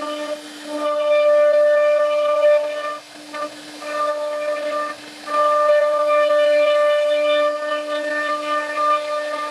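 CNC router spindle running with a steady whine as its bit routes grooves in a wooden board. A louder, higher cutting tone rides on top and drops out briefly about three seconds in and again about five seconds in.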